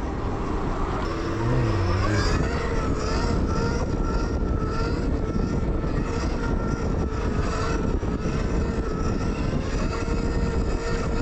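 Zero FX electric motorcycle being ridden, its motor giving a steady whine over a constant rush of wind and tyre noise.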